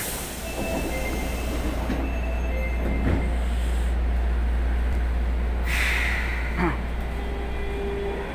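Running noise inside an Osaka Metro 23 series subway car: a steady low rumble with a few faint thin tones, and a burst of hiss about six seconds in.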